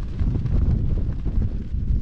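Wind buffeting the microphone: a loud, uneven low rumble that rises and falls.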